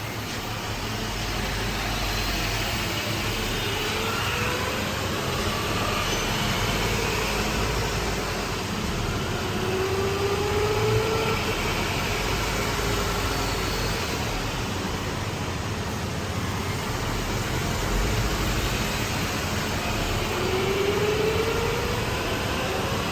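2018 Honda Civic running in Drive on a lift, its CVT freshly rebuilt with new pulleys, belt and shaft bearings, turning over a steady engine hum. This is the noise check after the rebuild. A faint whine rises in pitch twice, about ten seconds in and near the end.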